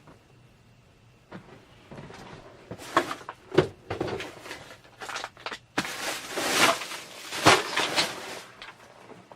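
Handling noises: a run of rustling and sharp knocks and clicks, busiest and loudest in the second half, as of small plastic toy pieces and packaging being moved about while searching for a dropped piece.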